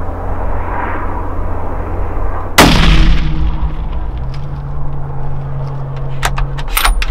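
Hunting rifle fired once about two and a half seconds in, a loud sharp crack with a trailing echo. A few sharp clicks follow near the end.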